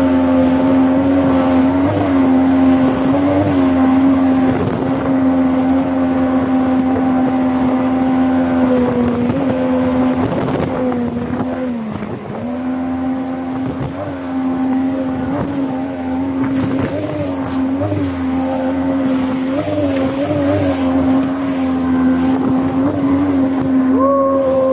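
Outboard motor of an inflatable boat running at speed up a river rapid, with one steady tone that dips briefly several times, most deeply about twelve seconds in. Water rushes along the hull underneath.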